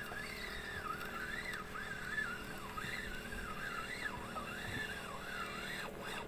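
Fishing reel drag buzzing as a hooked fish pulls line against it, the pitch rising and falling continuously as the fish's run speeds up and slows.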